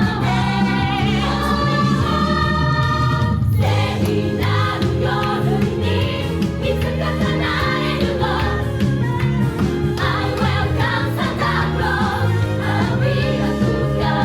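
Musical-theatre number: a female ensemble singing in chorus over band accompaniment. Long held notes with vibrato open it, then after a short break about three and a half seconds in, the singing moves faster over a steady beat.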